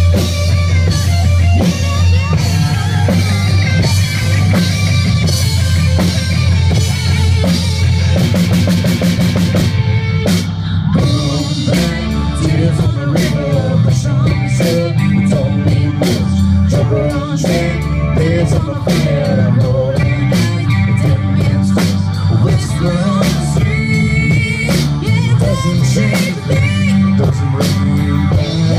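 Live rock band playing through an outdoor PA: drum kit, electric guitars and bass, with a quick drum fill about a third of the way in and a woman singing over the band through the second half.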